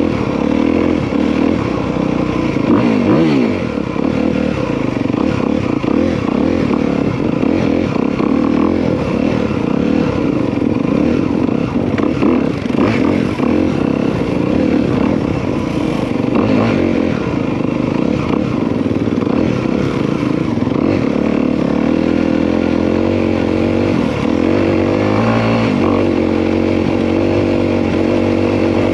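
Honda CRF250R dirt bike's single-cylinder four-stroke engine running while being ridden, revs rising and falling with the throttle the whole time and settling to a steadier pitch near the end.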